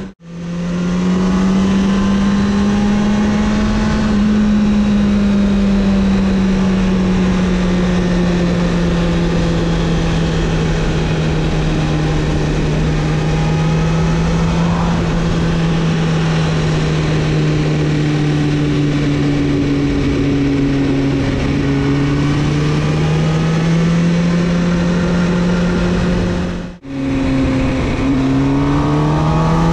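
Sport motorcycle engine running at steady high revs while cruising, heard from the rider's seat over wind rush. The pitch sags slowly, the sound cuts out briefly about 27 seconds in, and then the pitch climbs as the bike accelerates near the end.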